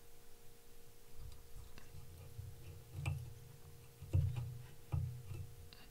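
Handling noise from fingers working a fly in a tying vise: scattered small ticks and clicks and three soft knocks, the loudest a little past the middle, over a steady faint hum.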